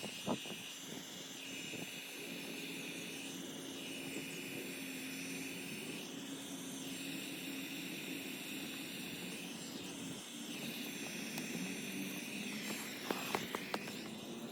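Hot-air blower (heat gun) running steadily, its motor and fan giving a constant whir, heating the tint film to shape it around a curved fog light lens. A few light clicks near the end.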